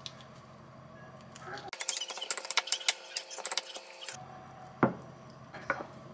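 A wooden spatula stirring a mashed tofu filling in a glass bowl: from about two seconds in, a run of quick clicks and taps of wood on glass lasting a couple of seconds, followed by a single knock.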